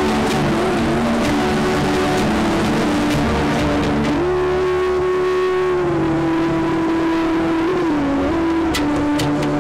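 Instrumental background music: long held notes that step from one pitch to another over a steady low drone.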